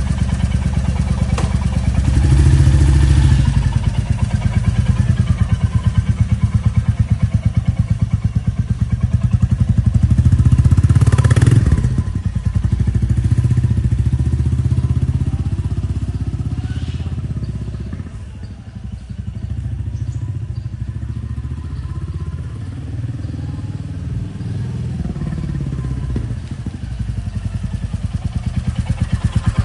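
Royal Enfield Classic 350's single-cylinder engine running with a steady low pulse, its note easing off about two-thirds of the way through and then building again.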